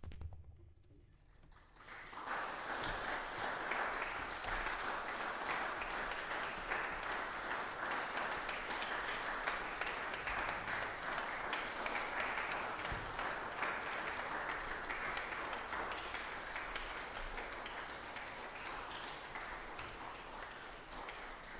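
Audience applauding. The clapping starts about two seconds in, after a brief low sound and a moment of quiet, and eases a little near the end.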